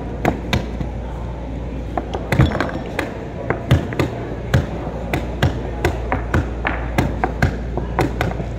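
Wooden chess pieces clacking onto the board and a chess clock's buttons being slapped in quick alternation during a blitz game. The sharp knocks come two or three a second, over a low steady hum.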